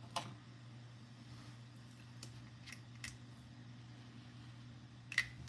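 A few faint, sharp clicks and taps of a small plastic pocket nasal inhaler being handled and uncapped, over a steady low hum.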